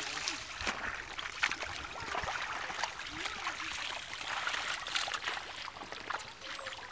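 Wet mud squelching and sloshing as several people wade through a drained pond and grope in the mud by hand, with many irregular wet splats and splashes.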